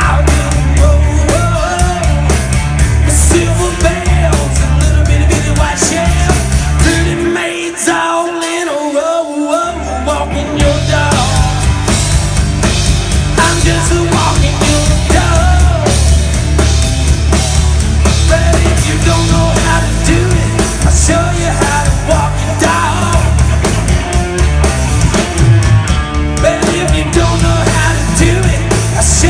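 Live rock band playing without vocals: electric guitars over a drum kit. About seven seconds in, the drums and the low end drop out for some three seconds, leaving the guitar alone, then the full band comes back in.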